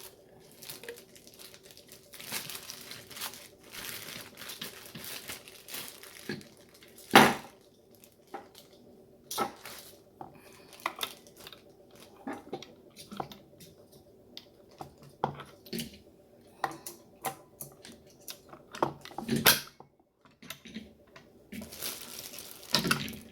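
Packaging rustling and crinkling, with scattered clicks and knocks of hard parts being handled while a button-making machine is unpacked and put together; the loudest knock comes about seven seconds in.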